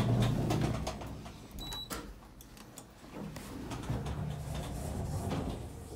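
Sliding doors of a 2009 Ennis Lifts passenger lift running, with the hum of the door motor and rattling panels, in two movements: one at the start, another from about three seconds in. A short high beep sounds near two seconds in.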